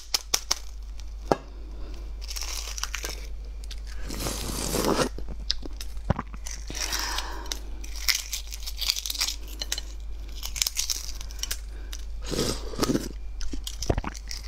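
Cracked shell of a boiled fertilised egg (huozhuzi) being peeled off by hand close to the microphone: stretches of crackling and crinkling as shell pieces break away, with a few sharp taps near the start and one near the end.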